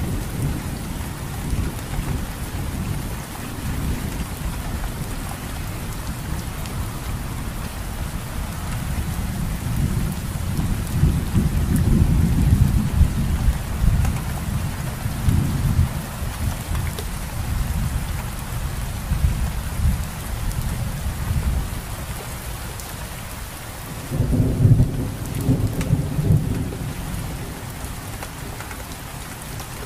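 Steady rain falling, with low rumbles of thunder that swell in the middle and again about three-quarters of the way through.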